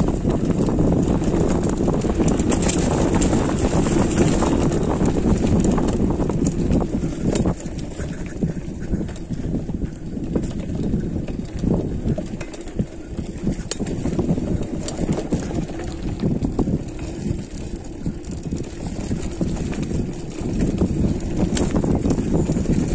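Mountain bike riding down a dirt trail: wind buffeting the microphone over the rumble of tyres on dirt, with occasional sharp clicks and rattles. The rumble eases off for a stretch about a third of the way in and builds up again near the end.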